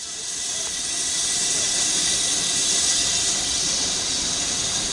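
Steam locomotive hissing: a steady hiss of escaping steam that swells over the first second or two, then holds.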